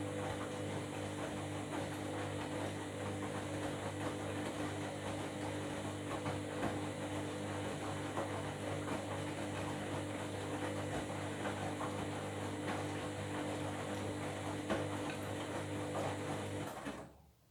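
Washing machine running mid-cycle: a steady motor hum with the drum and its load turning, which cuts off suddenly near the end.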